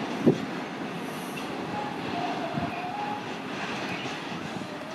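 Container freight train rolling slowly past, its wagon wheels rumbling steadily on the rails. There is a sharp knock about a quarter of a second in and a faint wheel squeal in the middle.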